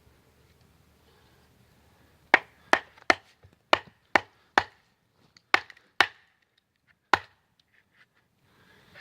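Chopping wood: about nine sharp strikes of a blade into wood at an uneven pace of roughly two a second, starting a couple of seconds in, with a pause before the last.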